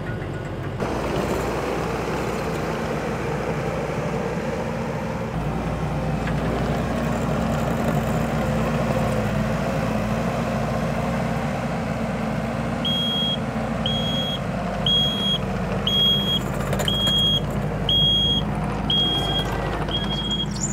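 Telehandler engine running steadily. Past the middle its reversing alarm sounds, eight high beeps about a second apart.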